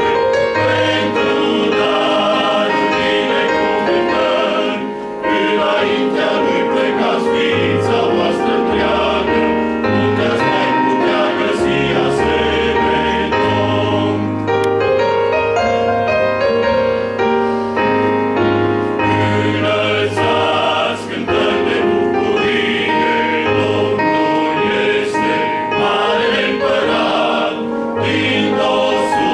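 Men's choir singing a hymn in harmony, with deep bass notes under the tune and two short breaks between phrases.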